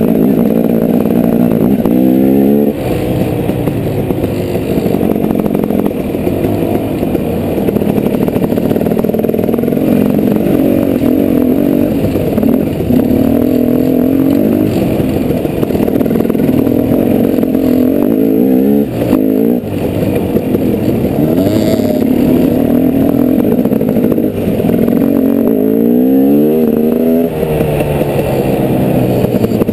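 Dirt bike engine running under load while ridden, its pitch rising and dropping with the throttle and gear changes. The revs climb sharply a few times: near the start, about two-thirds in and near the end.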